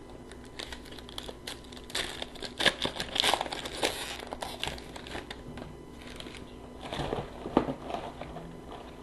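Foil trading-card packs being torn open and crinkled, and the cards inside shuffled: irregular crackling and rustling, busiest in the middle and again near the end.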